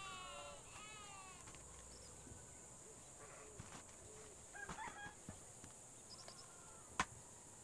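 An animal calls twice: a wavering, falling call at the start and a shorter, fainter one about five seconds in. A single sharp knock comes near the end, and a steady high hiss runs underneath.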